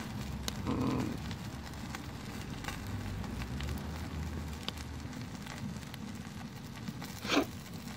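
Small open fire burning around a tin can set in the flames, crackling with scattered small pops, and one short louder sound near the end.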